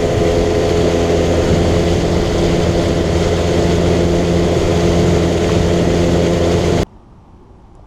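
A boat's outboard motor running steadily at cruising speed, with a steady engine drone and water hiss, until it stops abruptly near the end.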